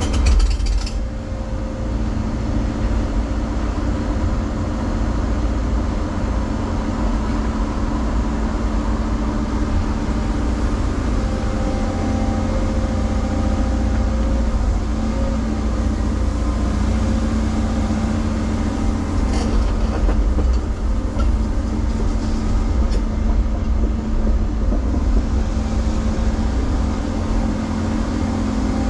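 Cat 335 Next Gen excavator's diesel engine running steadily under load as it digs, with a constant low hum, plus a few brief knocks about half a second in and again around twenty seconds in.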